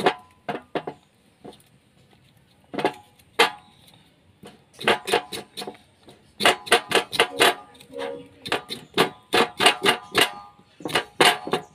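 Knife blade scraping scalded hair off a goat trotter on a wooden board, in quick rasping strokes about three or four a second. The strokes come in bursts, with a pause of a couple of seconds near the start.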